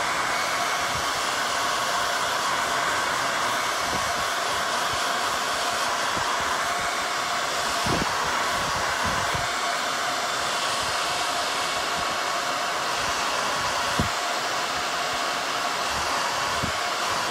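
Handheld hair dryer running steadily, a constant rush of air with a faint steady motor whine. Two light knocks come through, one about halfway and one near the end.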